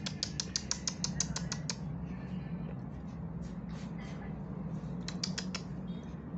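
Fast run of light tapping and scratching clicks, about eight a second, as a plastic drinking straw and a kitten's paws strike a tiled floor in play. The clicks stop about a second and a half in, and a short burst comes again about five seconds in, over a low steady hum.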